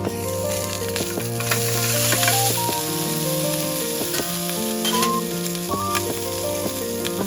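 Food frying in hot oil: a steady sizzle with small crackles, under background music that plays a simple melody.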